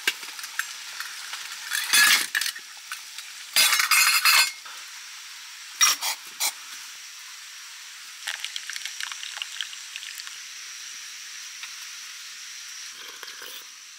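Stainless steel camp pot and its lid clanking loudly as they are handled, three times in the first half. Then softer crackling and trickling as hot water is poured into a drip-coffee bag in a metal mug.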